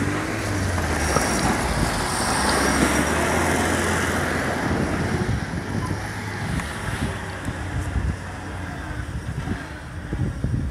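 Engine of an off-road all-terrain vehicle on low-pressure tyres running steadily as it drives, a low drone under rough travel noise that eases off somewhat in the second half.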